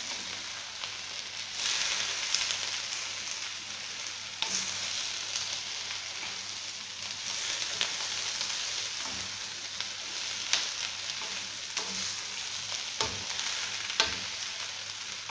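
Sliced potatoes and red onions sizzling in hot oil in a wok, turned over with a wooden spoon that scrapes and knocks against the pan now and then.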